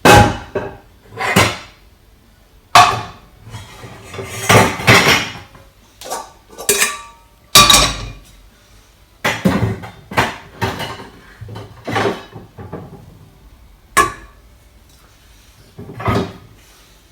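Kitchen pots, pans and utensils clattering: a series of irregular knocks and clanks, a few of them ringing briefly.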